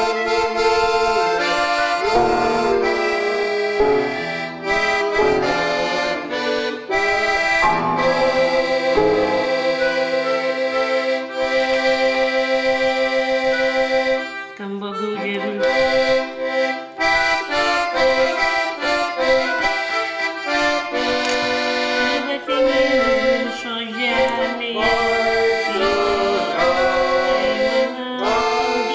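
Accordion playing a tune: long held chords under a moving melody, with a brief drop in the playing about halfway through.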